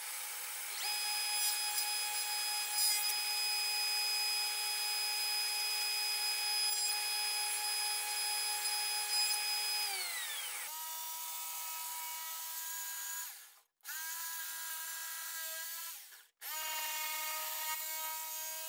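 Table saw motor running with a steady whine while it cuts a wooden board, then winding down near the middle. After that a corded jigsaw runs cutting a board, stopping and starting again twice.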